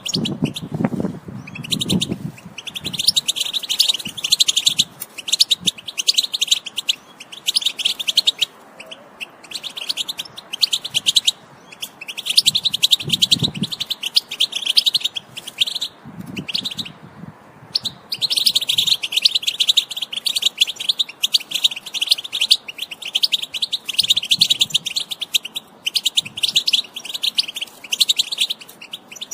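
European goldfinch singing, long runs of fast twittering song broken by a few short pauses.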